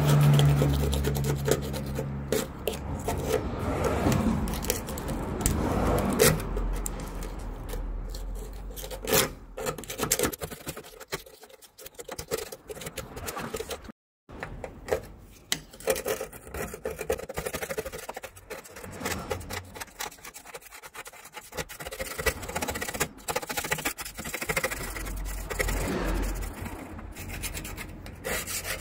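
Rubbing and scraping on a van's painted sheet-steel cargo floor, in irregular back-and-forth strokes. First a rust-eraser block scrubs at rust and grime; after a short break about halfway, a razor-blade scraper scrapes the same stained spot. A low hum sounds in the first couple of seconds.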